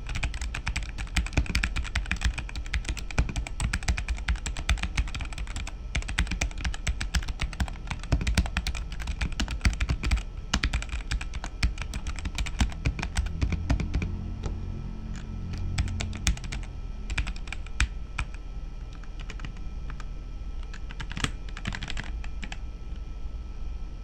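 Typing on a Dark Alien K710 mechanical keyboard with stock unlubed switches, modded with PE foam, two layers of tape and clipped stabilizers: a fast, steady run of keystrokes that thins out to scattered presses in the last few seconds.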